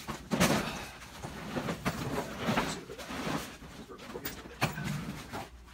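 Handling noises from packing: irregular rustling and knocking as plastic bags, luggage and gear are moved around.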